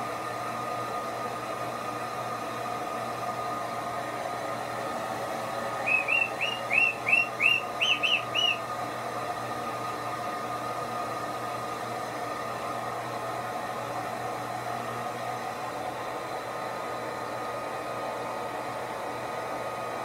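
Handheld hair dryer blowing steadily. About six seconds in, a white-bellied caique gives a quick run of about ten short rising chirps lasting two and a half seconds.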